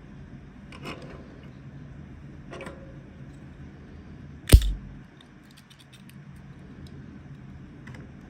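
Handling of toy packaging: two soft rustles, then one sharp, loud knock with a low thump about four and a half seconds in, followed by a few light clicks.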